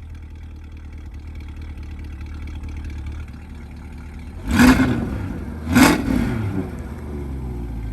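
C8 Corvette's V8 idling through high-flow sport catalytic converters, then blipped twice in quick succession, each sharp rev dropping straight back to idle.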